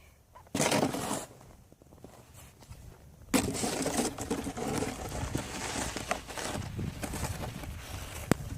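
Snow shovel scraping and pushing snow: a short scrape about half a second in, then a longer stretch of scraping and crunching from about three seconds in, with a sharp click near the end.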